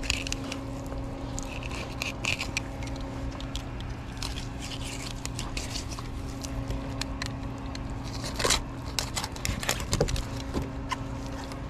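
A knife scraping and crackling as it cuts through a barracuda's scaly skin and along its rib bones on a cleaning board, in bursts of small scratchy clicks. A steady low hum runs underneath.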